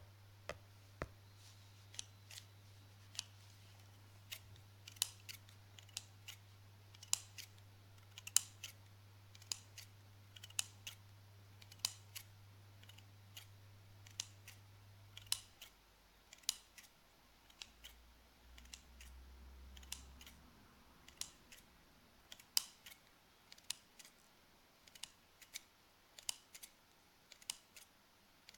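Scissors snipping close to the microphone: crisp, irregular clicks of the blades closing, roughly one or two a second. A faint low hum stops about halfway through.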